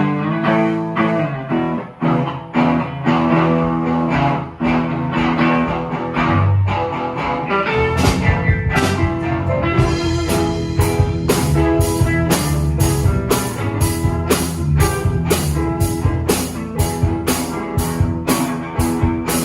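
A band playing: a guitar picking notes, with a drum kit coming in about eight seconds in and keeping a steady beat.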